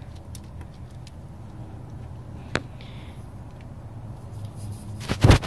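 GearWrench ratcheting wrench being worked on an exhaust header bolt: a few faint ticks, then one sharp ratchet click about two and a half seconds in. A louder short burst of noise comes near the end.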